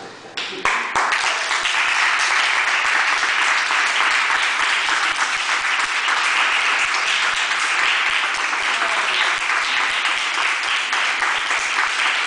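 Small audience applauding steadily, the clapping starting about half a second in as the music dies away.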